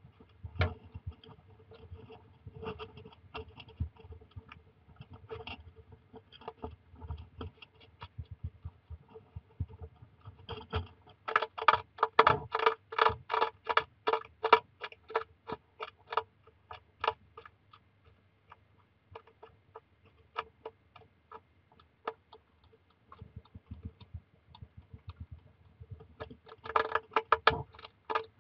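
Hedgehog chewing dry kibble biscuits: rapid crunching clicks, several a second, in bouts. The loudest bout comes in the middle, with another near the end.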